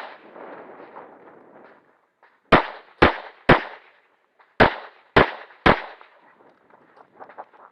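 Six pistol shots in two quick strings of three, each shot about half a second apart with a second's pause between the strings, each crack ringing briefly.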